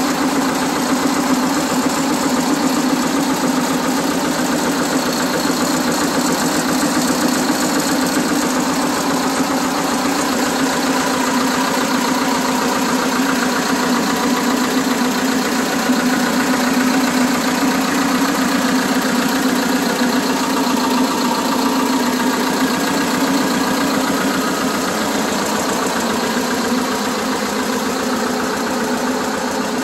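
Two-cylinder diesel engine of a Vladimirets T-25A1 tractor running steadily at idle, with an even, unchanging beat.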